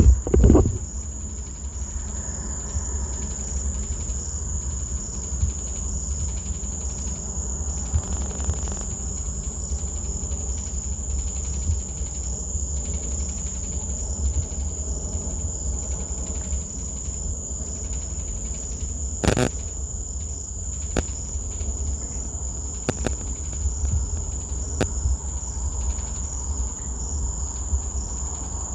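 A steady, high-pitched insect trill that holds one unbroken tone with a low rumble underneath. A thump comes right at the start, and a few sharp clicks come in the second half.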